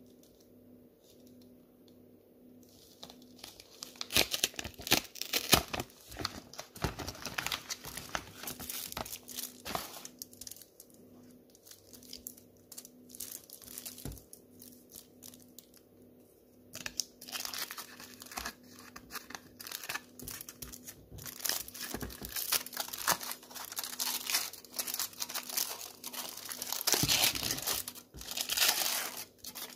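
Hands unwrapping a chocolate bar's aluminium foil wrapper, the foil crinkling and tearing. The crackling starts about three seconds in, eases off midway, and grows busier and more continuous in the second half.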